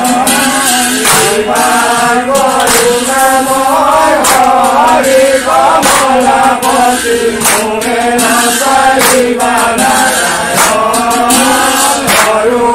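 A group of men chanting a devotional naam in unison, Assamese namprasanga style, with the voices rising and falling in a repeated melody. A sharp hand clap marks the beat about every one and a half seconds.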